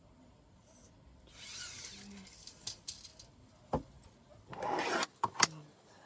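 Handling noises: a couple of spells of rustling, a single loud knock and several sharp clicks.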